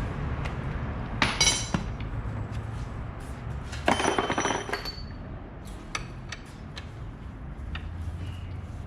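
Metal clinking and rattling of a coil-spring compressor and tools against a strut's coil spring, in two short loud bursts about a second in and about four seconds in, then a few lighter clinks, over a low steady hum.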